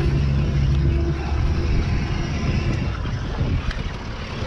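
Suzuki outboard motor running, a steady low hum that eases after about a second, with wind buffeting the microphone.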